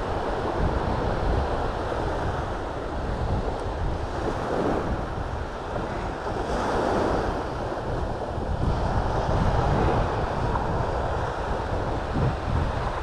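Waves breaking on the shore, mixed with wind noise on the microphone. The surf swells and eases a few times.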